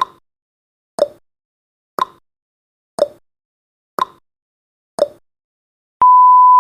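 Countdown timer's clock sound effect ticking once a second, alternating between a higher tick and a lower tock, six times. About six seconds in, a steady electronic beep starts as the timer reaches zero.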